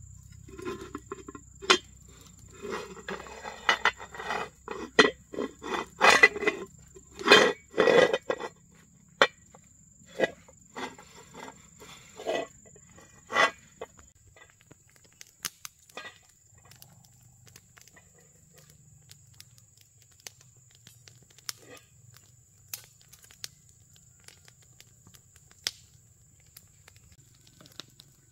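Metal cooking-pot lid clanking and scraping against the pot as a baby pushes it around: a run of sharp knocks, loudest about six to eight seconds in, that stops about fourteen seconds in. After that, a faint steady high insect whine with a few scattered ticks.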